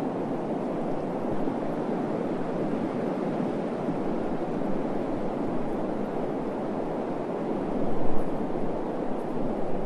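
Steady rushing noise with no pitch or rhythm, swelling briefly louder about eight seconds in.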